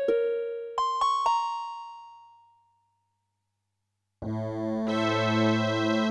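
Casio CTK-800 electronic keyboard playing preset voices: a few struck notes that ring and die away, then about a second and a half of silence, then a held chord in a different sustained voice starting about four seconds in.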